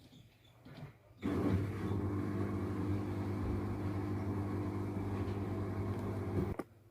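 Washing machine running with a steady motor hum, starting abruptly about a second in and cutting off suddenly near the end.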